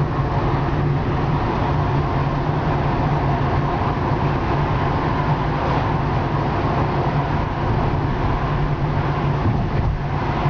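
Car driving along a town street, heard from inside the cabin: a steady low engine hum with road noise.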